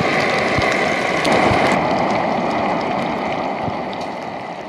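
Bacon and sausages sizzling and crackling in a frying pan on a camping stove, a dense steady hiss with small pops, slowly fading near the end.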